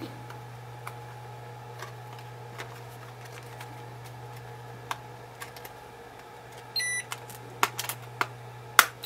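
Stiff plastic blister pack of Eneloop batteries being handled and pried open: scattered sharp plastic clicks and crackles, growing louder in the second half with the loudest snap near the end. A short electronic beep sounds about seven seconds in, over a steady low hum.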